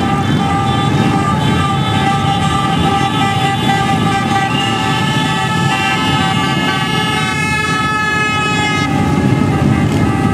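A stream of motorcycles, many of them Harley-Davidson V-twin cruisers, rumbling past at parade pace. A steady horn-like tone is held over the engines and fades out near the end.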